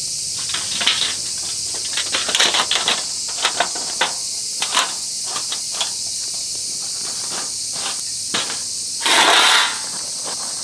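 Light clicks and metal taps from setting up a folding wire fire stand and its black fire sheet, then a brief scraping rustle about nine seconds in, the loudest sound. A steady high insect buzz runs underneath.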